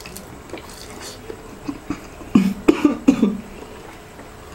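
A man coughing three times in quick succession about two and a half seconds in, on a mouthful of balut in extra-spicy sauce, with small wet chewing and mouth sounds before it.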